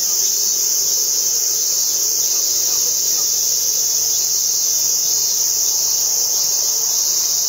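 Chorus of insects shrilling, a loud, unbroken high-pitched drone.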